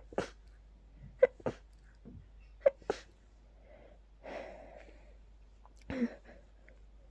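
A person sneezing rapidly, four sneezes in a row, each a short sharp catch followed by a burst about a quarter second later, with a breath drawn between the third and fourth. A pollen-triggered hay-fever sneezing fit.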